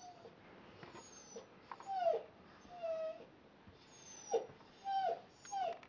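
Baby's short high-pitched squeals, about six in a row, several dropping in pitch at the end.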